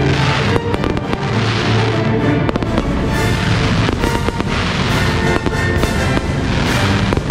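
Fireworks bursting and crackling, with repeated sharp reports and fizzing crackle, over music with sustained tones.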